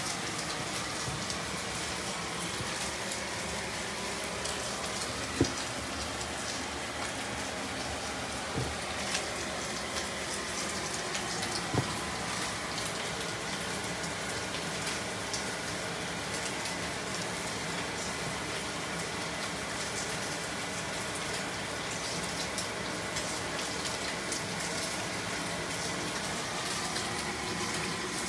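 Bone-in steak searing in a heavy skillet: a steady hiss of sizzling fat, with a few light knocks about five and twelve seconds in.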